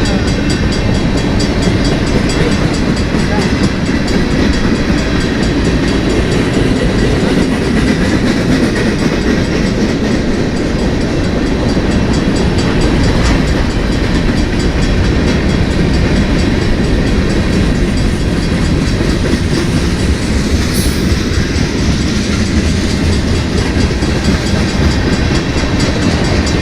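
Freight train cars rolling past, a steady loud rumble with wheel clatter on the rails.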